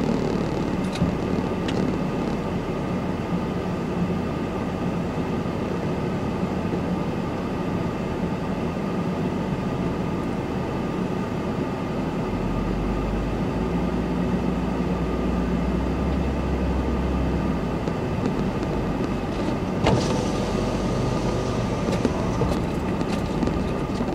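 Honda Ridgeline's V6 running and road noise from inside the cab while pulling a loaded trailer, a steady drive sound. A deeper low drone comes in about halfway and fades out several seconds later.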